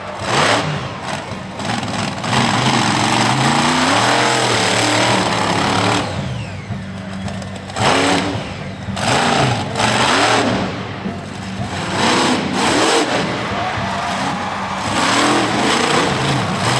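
Monster truck engine revving hard over and over, its pitch climbing and dropping with each burst of throttle as the truck drives around the dirt course.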